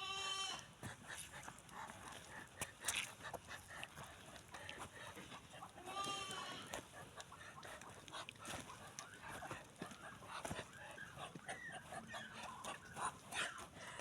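Farmyard poultry calling and clucking, with two drawn-out calls, one at the start and one about six seconds in, over many short scattered calls and clicks.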